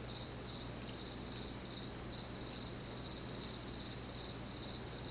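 Cricket chirping steadily, a high pulsed call about three chirps a second, with a few faint clicks from the lock pick working in the lock.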